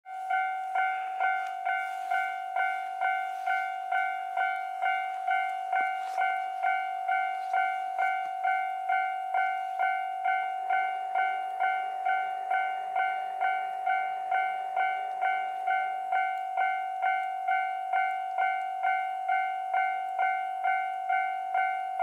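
Japanese railroad crossing warning bell ringing its electronic ding-ding, a little over two strokes a second, steady throughout: the crossing is activated and the barriers are lowering for an approaching train.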